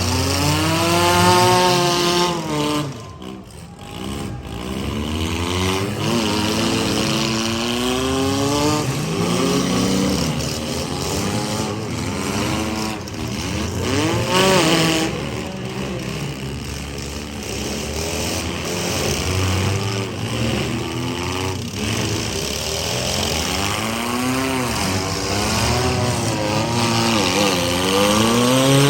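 Several compact and midsize car engines revving hard and unevenly at the same time in a demolition derby, their pitches rising and falling as the cars accelerate, back up and ram one another.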